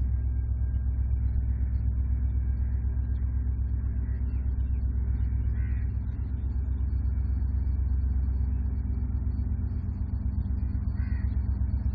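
Diesel freight locomotive's engine rumbling steadily as the train approaches. A crow caws briefly about halfway through and again near the end.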